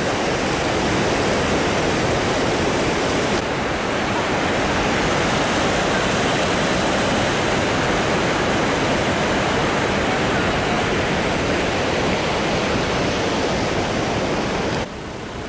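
Steady rush of the fast, shallow, rocky upper Elbe (Labe) river flowing over stones. It drops off abruptly near the end.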